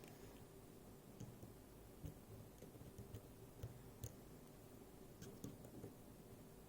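Faint, scattered ticks and clicks of a pick working the pins inside a Miwa JN dimple lock, against near-silent room tone.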